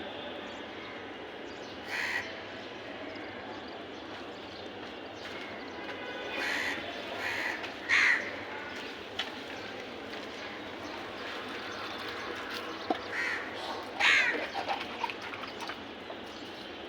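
Crows cawing: about six separate caws scattered through the stretch, the loudest about eight and fourteen seconds in, over a steady background hiss.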